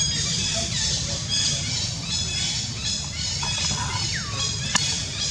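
Young macaque giving a run of short, high-pitched squeals and squawks, two of them falling sharply in pitch near the end, with a single sharp click shortly before the end.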